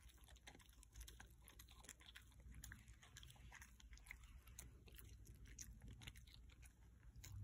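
A Shikoku dog chewing dried fish: faint, irregular crunching and clicking of teeth on the brittle, spiky bits.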